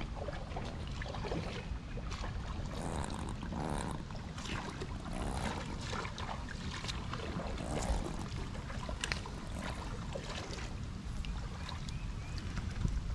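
Wind rumbling on the microphone over open river water, with scattered faint ticks and splashes.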